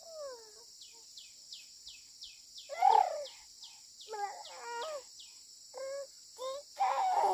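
A steady insect drone with rapid short chirps over it, and several louder wavering calls. The loudest call comes about three seconds in, and another long one near the end.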